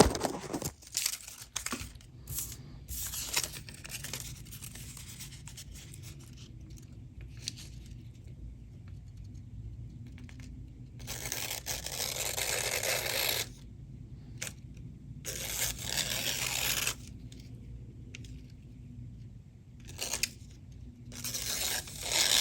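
A freshly sharpened knife blade drawn in long scraping passes, two of them lasting about two seconds each in the middle and shorter ones near the end, with light handling clicks in between.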